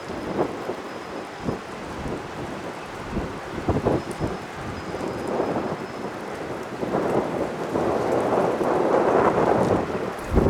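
Gusty wind buffeting the microphone with irregular low thumps, over the rushing noise of an Airbus A330's jet engines on landing approach, which grows louder over the last few seconds.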